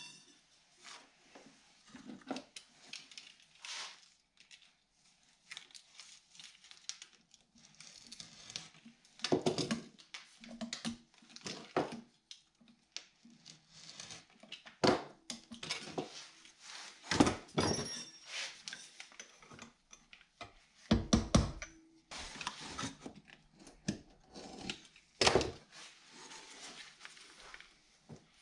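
Scattered knocks, taps and handling noise of hand work on a driveshaft's CV joint while a lock ring is fitted, with the loudest knocks about 17 seconds in, a quick cluster around 21 seconds, and another about 25 seconds in.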